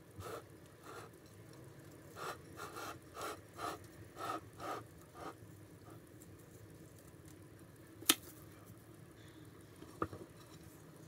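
Soft scraping and rustling as crushed walnuts are pressed onto a cake and crumbs are handled on baking paper. It comes as a run of short scrapes, several a second, in the first half, then two sharp clicks about two seconds apart.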